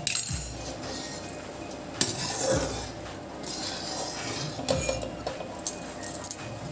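A perforated metal skimmer spoon stirring and scraping in a metal kadhai, with a handful of sharp clinks against the pan spread irregularly through the stirring. Under it is a steady low hiss from the sugar syrup frothing at the boil.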